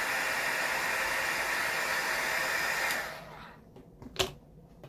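Heat gun blowing steadily as it post-heats freshly laid vinyl wrap to set it. It switches off about three seconds in and dies away, followed by a single sharp click about a second later.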